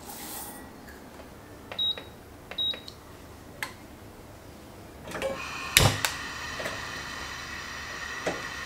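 Two short electronic beeps from the buttons of a Toshiba rice cooker as it is set. About five seconds in, a gas stove burner clicks and lights with a sharp click, and its flame then hisses steadily.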